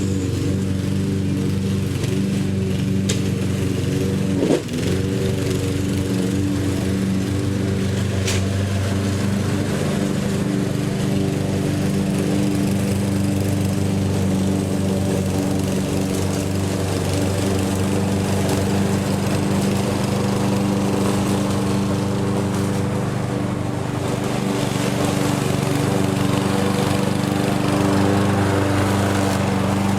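Lawn mower engine running steadily at a constant speed. About four and a half seconds in there is a brief knock, and its pitch dips for a moment and recovers. Near the end it grows slightly louder, with more hiss.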